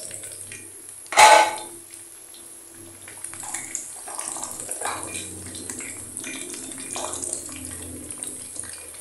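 Curly fries frying in hot oil in a wok: a steady sizzling hiss while a wooden spatula stirs them. One sharp clack about a second in.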